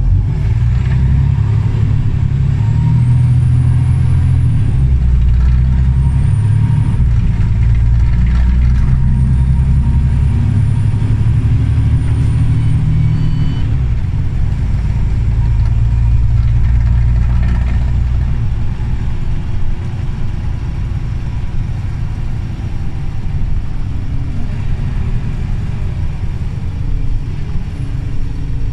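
Scania OmniCity city bus heard from inside the cabin while driving: a loud, low diesel engine drone that steps up and down in pitch several times as the bus pulls and shifts. A faint high whine sits on top a few seconds in, and the engine eases off somewhat in the second half.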